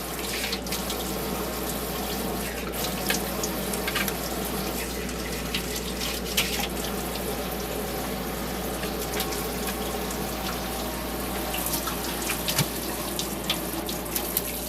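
Water running steadily from a tap into a sink, with a few brief clicks and splashes, while a pet bird is bathed under it.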